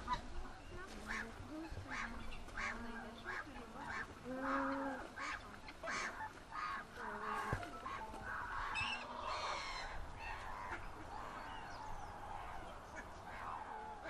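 Geese and ducks calling, a run of short honks and quacks one after another.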